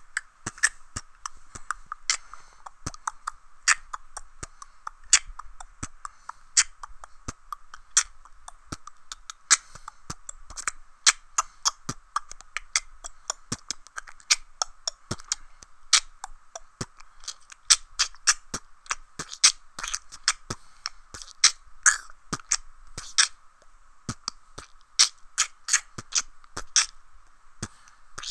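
Solo human beatboxing: mouth-made kick, snare and hi-hat sounds in a steady rhythm, with the strongest hits about every second and a half and quicker clicks between them.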